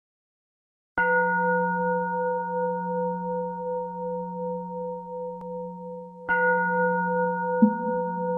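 A Buddhist bowl bell (qing) is struck twice, about five seconds apart. Each strike rings on in a long, slowly fading tone with several steady overtones. A brief lower knock comes near the end.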